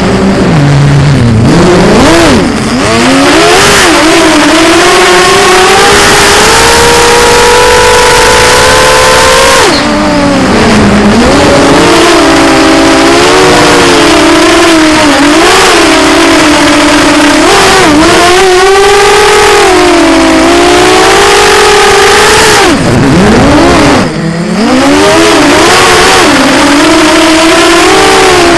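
Electric motors and propellers of a small FPV drone, heard close from its onboard camera: a loud whine that rises and falls in pitch with the throttle. The whine drops sharply about a second in, again around ten seconds and again near 24 seconds, then climbs back.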